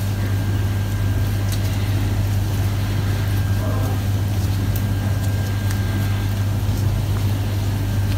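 Steady low hum, with a faint thin high whine held above it.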